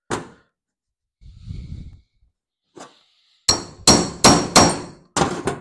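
Sharp, ringing metal-on-metal hammer blows on a tool held against the carburetor: one blow at the start, then five quick blows about a third of a second apart near the end. They are breaking loose a fastener that was seized tight.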